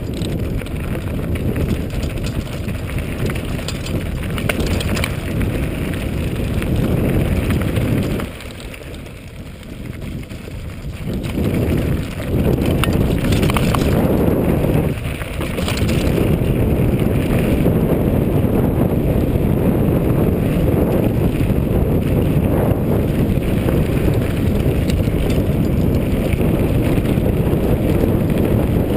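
Mountain bike riding fast down a dirt and gravel track. Wind rushes over the microphone, the tyres crunch on loose stones, and the bike frame gives off scattered rattles and clicks. The rush drops off for a few seconds about eight seconds in, then comes back louder.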